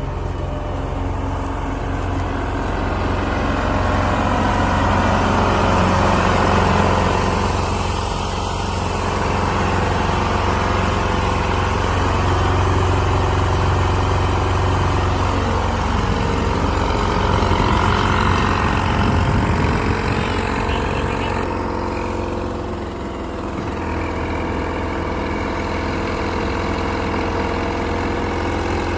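Clayson 8080 combine harvester running steadily while harvesting wheat, its engine droning with a loudness that swells and eases slightly.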